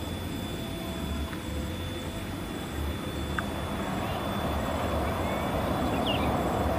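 Diesel locomotive coming out of a rail tunnel, its engine and running noise growing steadily louder through the second half as the train approaches.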